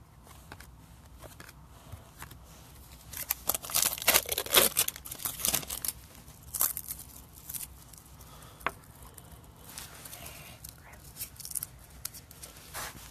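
Baseball card packs and cards being handled: a wrapper torn and crinkled in a dense few seconds of rustling about three to six seconds in, with scattered light clicks and short slides of cards before and after.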